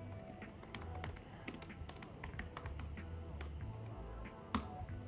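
Typing on a computer keyboard: irregular key clicks, with one louder key press about four and a half seconds in.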